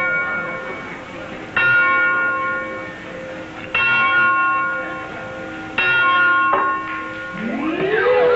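A large bell struck slowly: three strokes about two seconds apart, each ringing on and fading, after one struck just before. Near the end a siren-like tone rises in pitch and then holds steady, sounding for the unlucky penalty number.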